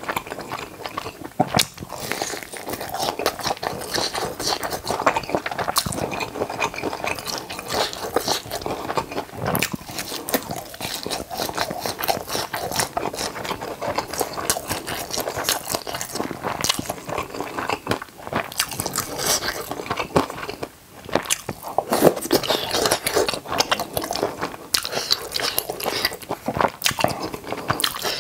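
Close-miked eating sounds: chewing and biting into spicy tteokbokki and a sauce-dipped fried seaweed roll, with crunches from the fried batter. The sound is a dense, irregular run of small clicks and crackles, with a brief lull about 21 seconds in.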